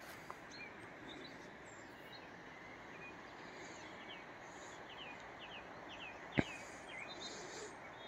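A small bird calling: a run of short, high, falling chirps in the second half, over faint steady outdoor hiss. A single sharp click sounds about six seconds in.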